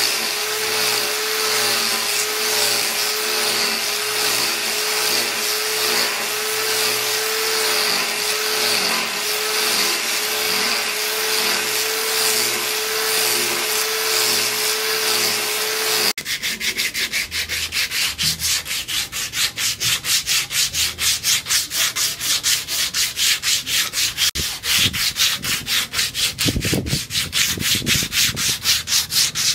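An electric angle grinder with an abrasive disc sands a wooden axe handle: a steady whine over a hiss of abrasion. About halfway through it stops abruptly and gives way to fast, even rubbing strokes along the wooden handle by hand.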